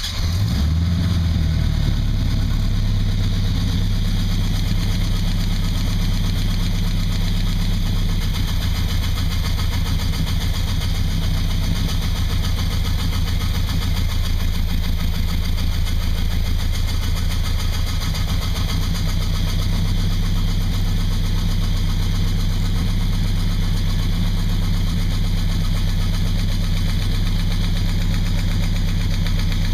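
Chevy V8 engine running at a steady idle while its lifters and rocker arms are being adjusted.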